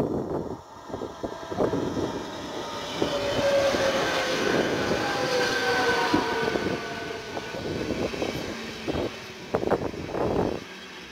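ČD class 471 CityElefant double-deck electric multiple unit passing close by: the whine of its traction drive falls in pitch as it goes by, over the rumble of wheels on the rails. Gusts of wind buffet the microphone at the start and near the end.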